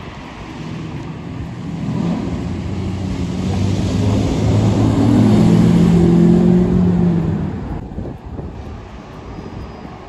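Mercedes-Benz W140 S-Class sedan driving past, its engine hum growing louder as it approaches, peaking as it passes close about five to seven seconds in, then fading away.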